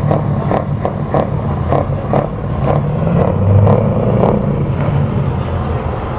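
A Scania V8 diesel tractor unit runs with a low, steady rumble while it drives slowly, swelling briefly a little past the middle. A regular ticking, about three times a second, runs alongside until about four seconds in.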